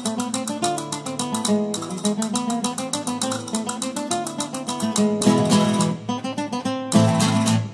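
Music: acoustic guitar strummed fast in a flamenco style, with heavier accented chords in the second half.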